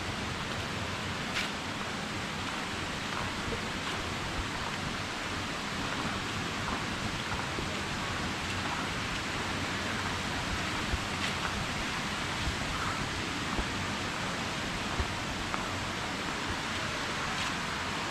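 Steady rushing of flowing water from a mountain stream and waterfall, an even hiss with a few faint clicks over it.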